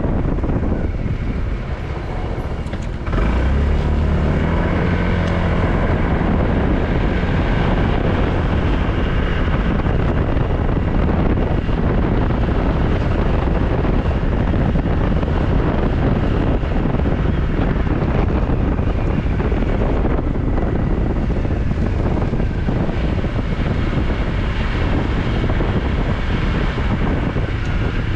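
Motorcycle riding, its engine running under heavy wind rush on the microphone. About three seconds in the sound jumps louder and the engine pitch climbs as the bike accelerates, then holds steady.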